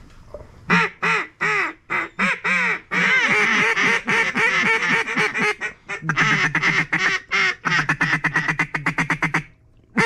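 Mallard duck call blown by a hunter. It gives a string of loud single quacks, then runs into a long stretch of fast quacks and chatter, and breaks off near the end.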